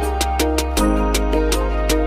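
Background music with a steady beat of light percussion over a sustained bass and melody; the bass moves to a new note just under a second in.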